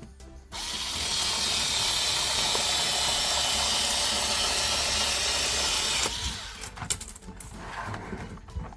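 A small power cutter runs steadily for about five and a half seconds while cutting into hard plastic blister packaging. It starts and stops abruptly, and a few handling clicks follow.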